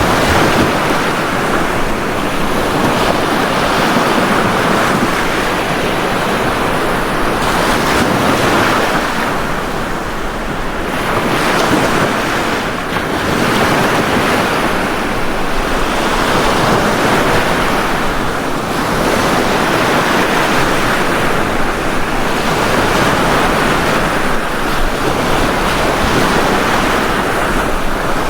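Sea waves breaking on a beach: a steady wash of surf that swells and eases every few seconds.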